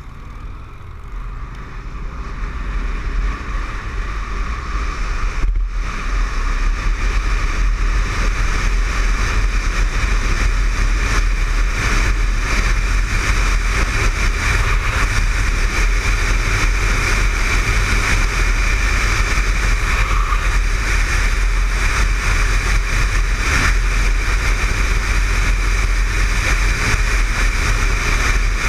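Motorcycle pulling away and accelerating to cruising speed, its engine and the rush of wind on the mounted camera's microphone growing louder over the first several seconds and then holding steady.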